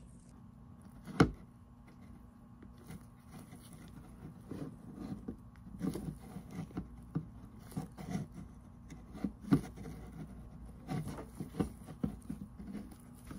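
Handling noise from gloved hands pushing a plastic fuel line onto a small in-tank fuel filter: a sharp knock about a second in, then scattered small clicks and rubbing of gloves on tubing.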